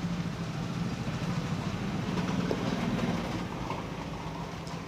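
Steady low background rumble with a low hum, a little louder in the middle.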